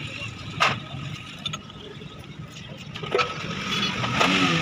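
A few sharp metal clinks as a steel rocker-arm shaft is handled and slid into the rocker towers of a Suzuki Ravi pickup's cylinder head, over a steady low workshop background noise.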